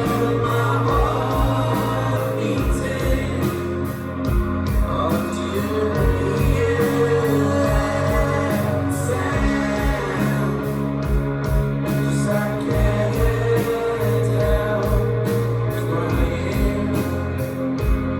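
A band playing live: a singer over guitar and a steady low drum beat.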